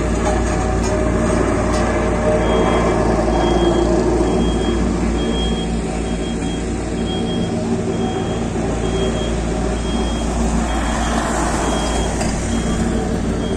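Construction machines, a tandem road roller and a plate compactor, running steadily with a low engine hum. From about two and a half seconds in, a high reversing alarm beeps about once a second.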